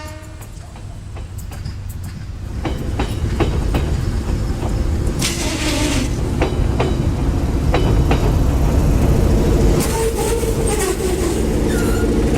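A train rolling past close by: deep rumble growing louder over the first few seconds, wheels clacking over rail joints, and a wavering wheel squeal about ten seconds in.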